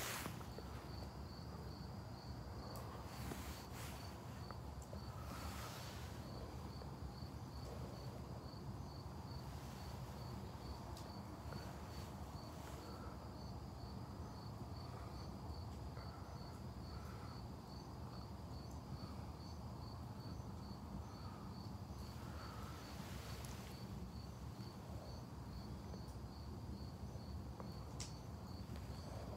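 Wood fire burning in a fireplace, with a low rumble and occasional sharp pops and crackles from the logs. Over it, a faint, steady high-pitched chirping repeats evenly at about one and a half chirps a second.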